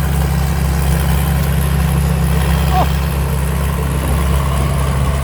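Combine harvester's turbocharged 270-horsepower engine running steadily while it harvests rice, a constant deep drone.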